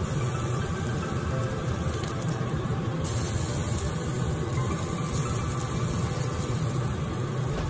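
Steady rushing noise of a portable gas-cartridge burner running under chicken wings as they grill.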